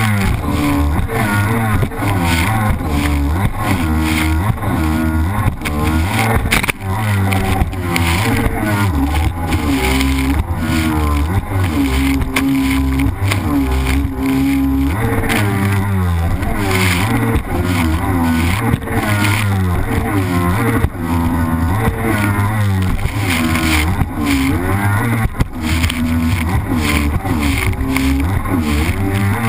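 Yamaha Superjet 650 stand-up jet ski's two-stroke twin engine running hard, its pitch rising and falling with the throttle, over the rush of water spray.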